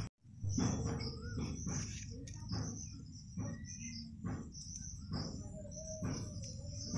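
Crickets chirring steadily in the background, with a few short bird chirps. Soft rustling about once a second comes from hands stuffing coarse ground spice into small slit brinjals. The sound drops out for a moment at the very start.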